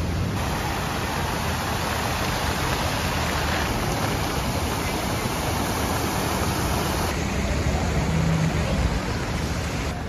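Fountain jets spraying and splashing into a shallow pool: a steady rushing of water.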